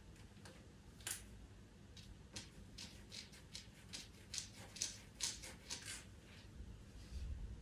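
Pastel pencil scratching on pastel paper in short, quick strokes, about two a second, with a single stroke about a second in.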